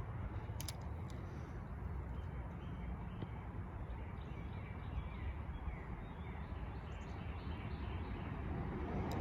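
Steady low outdoor background noise with faint bird chirps now and then, and a couple of light clicks about half a second in.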